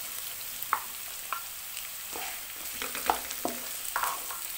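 Chopped onions frying in hot oil with garlic, sizzling with a steady hiss, as a wooden spoon stirs them. The spoon scrapes and knocks lightly against the non-stick pot several times.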